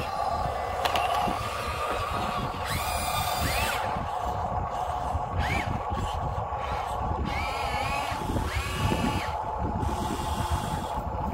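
Small electric motors and gearboxes of radio-controlled scale construction models whining steadily, with several short whines that rise and fall in pitch as the motors speed up and slow down, about three to nine seconds in.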